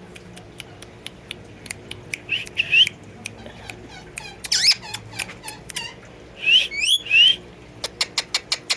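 A parrot giving short rising squawks, some in quick pairs, among scattered sharp clicks that come in a fast run near the end.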